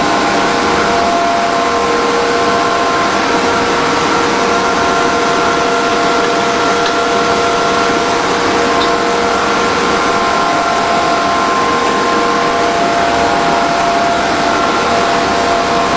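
PVC sheet extrusion line running: a steady, loud machine noise, an even hiss with several constant whining tones over it.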